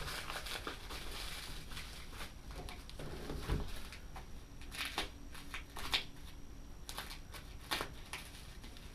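Packaging being handled during an unboxing: rustling and crinkling of paper and plastic, with scattered light clicks and knocks as items are lifted out of the box.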